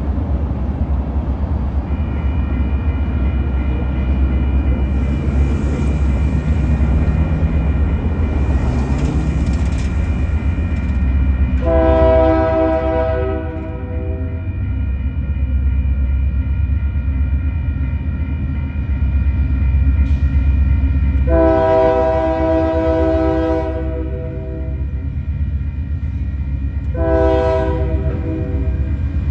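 Union Pacific diesel locomotives running under load as the freight train approaches. The air horn sounds the grade-crossing signal: a long blast about twelve seconds in, a longer one about twenty-one seconds in, then a short blast near the end.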